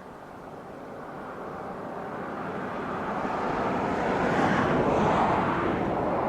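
A vehicle passing by: a rushing noise that builds over about five seconds, peaks, then fades near the end.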